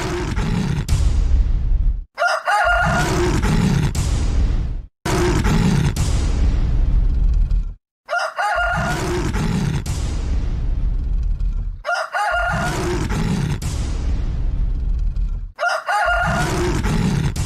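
A run of about six short show-intro stings played back to back, each cut off abruptly. Each one opens with a rooster crowing, followed by a loud, deep rumbling sound effect.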